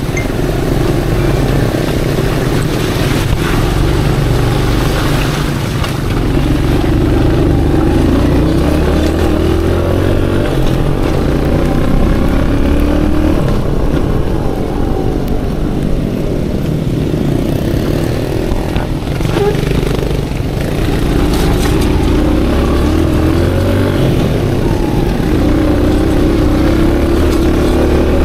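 Aveta Ranger Max Explorer cub-cross motorcycle engine running under way, its pitch rising and falling again and again as the throttle opens and closes.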